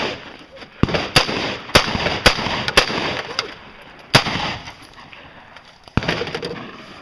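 Gunshots: about seven sharp shots fired at an uneven pace during a timed shooting stage, each followed by a short echo.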